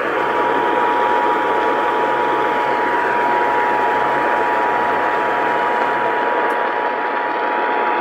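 Emergency Alert System attention signal: the two-tone alarm, two steady pitches sounding together, starting just after the start and held throughout, with a constant hiss of radio static beneath. It announces an Evacuation Immediate alert.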